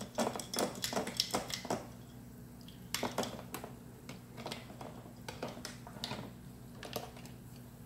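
Wire hangers and aluminum parts clinking and tapping against each other and the plastic bin as they are jiggled about in a caustic soda bath: a quick run of clicks in the first two seconds, then scattered single clinks.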